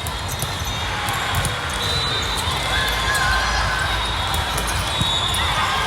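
Volleyball play in a busy sports hall: sharp smacks of volleyballs being hit and bounced over a steady din of many distant voices.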